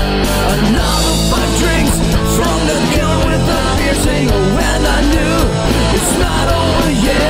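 Loud punk-style rock music with a full band and singing.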